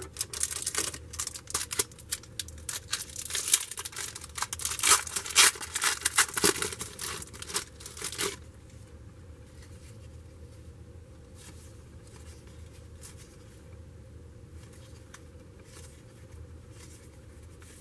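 A trading-card wax pack wrapper being torn open and crinkled, a dense crackling for about eight seconds, then quiet with a few faint ticks of cards being handled.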